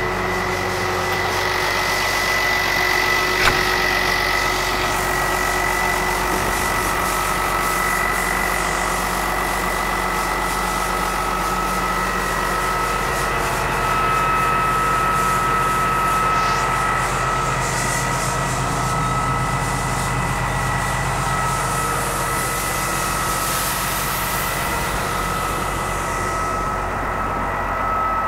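Massey Ferguson 6485 tractor's diesel engine idling steadily, a low hum under a steady high whine, with one sharp knock about three and a half seconds in.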